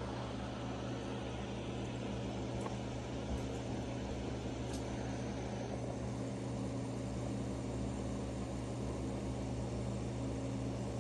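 Small TopFin aquarium filter running: a steady low hum with a hiss over it.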